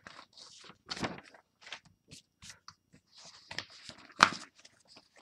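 Paper being lifted off and slid across a desk: short, irregular rustles with a couple of sharper knocks, the loudest about four seconds in.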